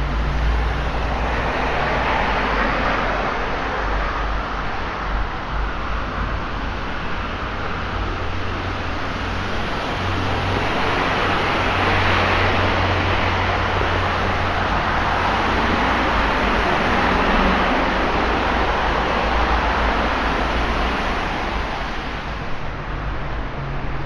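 Road traffic on a rain-soaked road: tyres hissing on the wet surface over a low engine rumble. The sound swells as vehicles pass, loudest about twelve seconds in.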